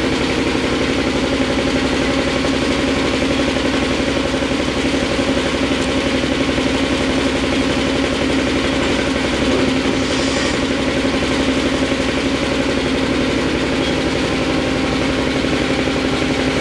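Shop air compressor running steadily, a loud motor hum that drowns out the CNC lathe. About ten seconds in there is a brief whir as the lathe's tool turret indexes to a new tool.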